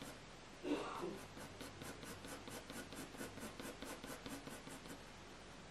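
HB graphite pencil rubbing on hot-press watercolour paper in quick back-and-forth shading strokes, about four or five a second.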